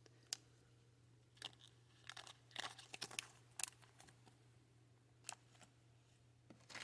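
Faint, scattered clicks and crinkles of small plastic bead bags and beads being handled, a cluster in the middle and more near the end.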